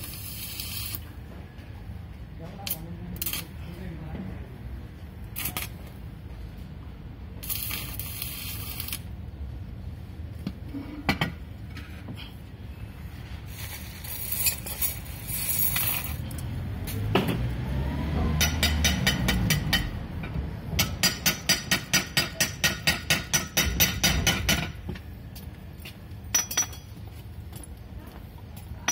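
Arc welding on a dough mixer's steel hook arm: short bursts of welding-arc crackle, then a run of rapid metal-on-metal strikes, about four a second, for several seconds in the second half.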